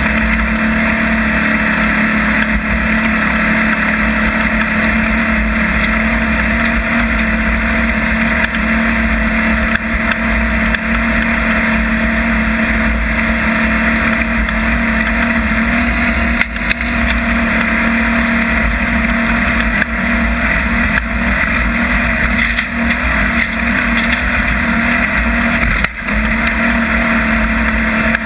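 Desert off-road race vehicle's engine running steadily at speed: a constant drone under a loud rushing noise, dipping briefly about sixteen and again about twenty-six seconds in.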